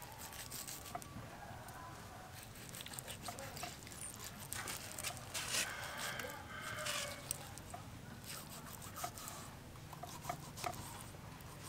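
A rooster crows once, for about two seconds, near the middle. Light ticks and taps run throughout as a knife cuts through a cooked pork head on a wooden chopping board.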